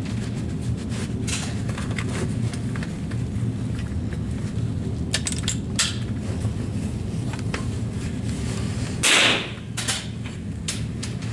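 A single rifle shot, brief and sharp, about nine seconds in, over a steady low hum; a few faint clicks come before it.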